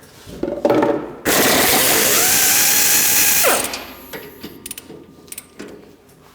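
Pneumatic air ratchet spinning up with a rush of air hiss and a rising whine, running steadily for about two seconds as it backs out a plow bolt on a snowblower's lower steel cut edge, then winding down. Light metallic clicks follow near the end.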